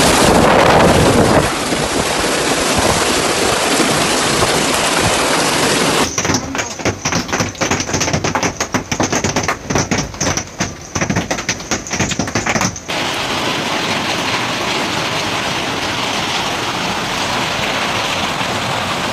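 Hailstorm: a steady roar of heavy hail and rain, broken in the middle by several seconds of dense, rapid, irregular clattering of hailstones striking a hard surface. The sound changes abruptly a few times.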